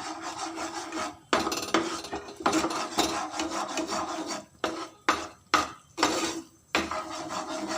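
A utensil stirring and scraping a thick, sticky jaggery-and-ghee mixture against the bottom of a pan, in repeated uneven strokes with short breaks in the second half.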